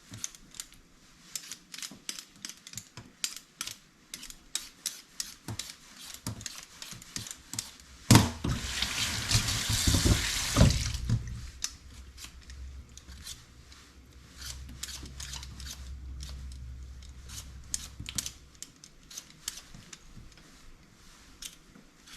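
Kitchen tap running for about three seconds in the middle, among many small clicks and knocks of kitchen work. A low hum follows for several seconds.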